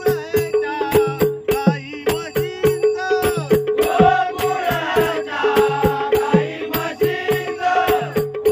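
Marathi devotional bhajan: small hand cymbals struck in a steady quick rhythm with a drum beat under a held drone, and an elderly man's voice taking up the sung line about four seconds in.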